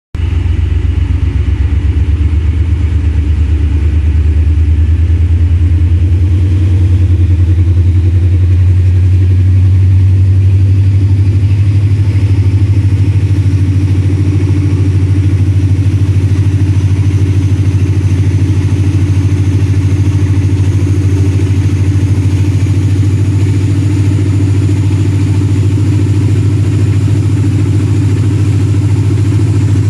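ZCU-30 diesel locomotive's engine chugging loudly with a rapid, even low beat as it picks up, its note growing fuller from about halfway through.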